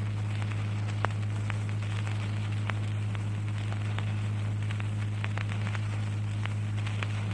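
Steady low electrical hum with scattered crackles and clicks: the background noise of the recording or its sound system.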